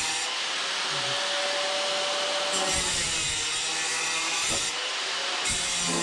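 Angle grinder running under load as it cuts, its motor whine shifting several times as the cut bites and eases.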